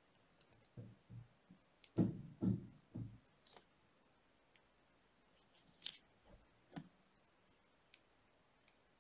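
Jewellery pliers and copper wire being handled on a work surface: a run of soft knocks in the first three seconds, loudest about two seconds in, then a few short sharp clicks.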